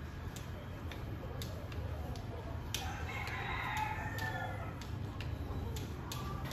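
A rooster crowing once: a single drawn-out call that rises and then falls, starting about three seconds in, over scattered light clicks.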